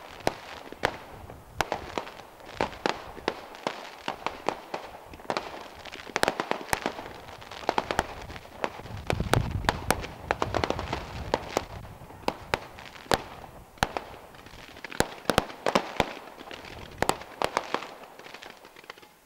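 Fireworks display: irregular sharp bangs and crackles of shells bursting, some in quick clusters, with a denser run of heavier booms about halfway through.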